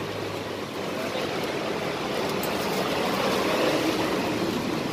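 Steady, even rush of outdoor background noise, with no single sound standing out.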